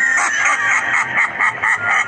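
Animatronic circus popcorn clown prop's built-in speaker playing a rapid cackling laugh, about five pulses a second.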